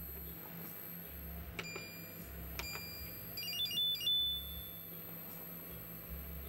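Electronic beeps from the front panel of a KUNKIN KP184 DC electronic load as its buttons are pressed to set a 5-ampere load. A click and a held tone come about one and a half seconds in, then a quick run of short beeps stepping up in pitch around four seconds in, over a steady low hum.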